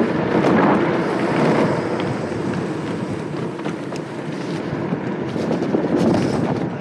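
Wind rushing over the microphone and small hard tyres rolling on asphalt as an engineless Speed Down gravity racer coasts and slows, with scattered knocks and rattles from the car.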